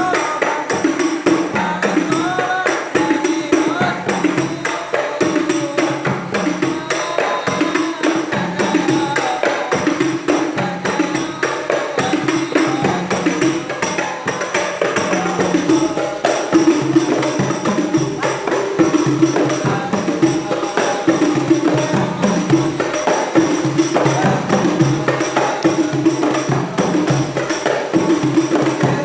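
Terbangan, Javanese frame drums with jingles, played together in a fast, dense rhythm: deep drum strokes under a continuous high jingling.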